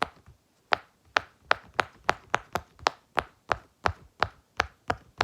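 Silicone pop-it fidget toy with its bubbles pressed through one after another, giving a steady run of sharp little pops, about three a second.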